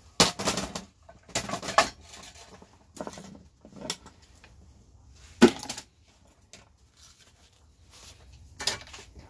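Metal scrap parts and tools clattering and knocking on a workbench as a light fixture is pulled apart: a series of separate clanks and rattles, the sharpest about five and a half seconds in.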